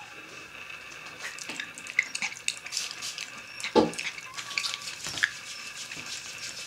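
A Morkie (Maltese–Yorkie cross) mother dog licking and chewing through a newborn puppy's umbilical cord with her teeth: irregular wet smacking and clicking, with one louder thump about halfway through.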